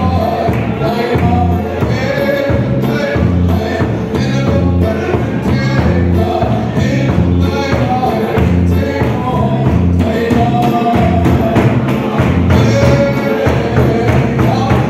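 A congregation singing a hymn together to the steady beat of a large double-headed khuang drum, the traditional Mizo church drum.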